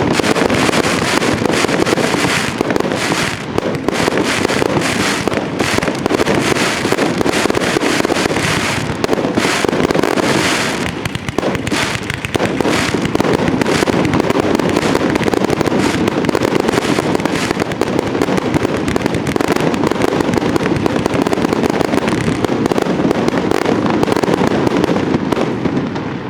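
Fireworks display: a dense, rapid barrage of shell bursts, many a second with no break, dying down at the very end.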